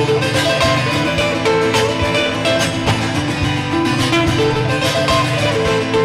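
Two acoustic guitars played together live, strummed and picked in a steady rhythm.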